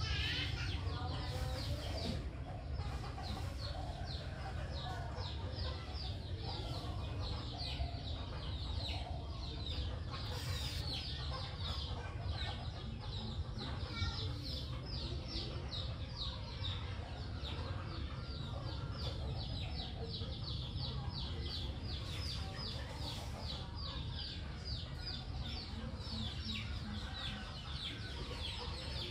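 Chickens calling in the background: a dense run of short, high calls, several a second, over a low steady hum.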